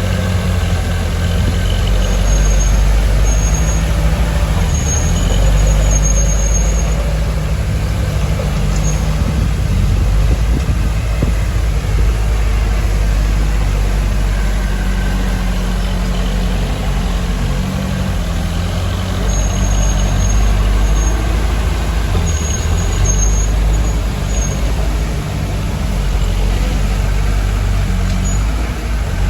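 Heavy diesel engines of a bulldozer and dump trucks at work, running steadily, with short high-pitched squeals that come in a few clusters, a couple of seconds in and again about two-thirds of the way through.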